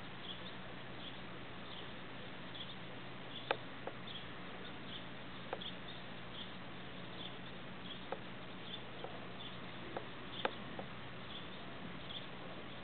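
Quiet outdoor ambience: steady hiss with a low hum, faint short high chirps every half second or so, and several sharp clicks, the loudest about a third of the way in and again near the end.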